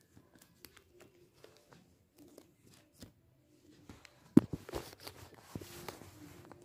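Light taps and paper rustling from hands working a paper craft. About four seconds in there is a loud thump, followed by a couple of seconds of closer rustling.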